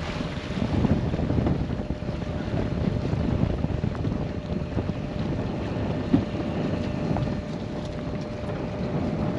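Wind buffeting the microphone over the low rumble of a small boat on the sea, with a faint steady hum underneath and one sharp knock about six seconds in.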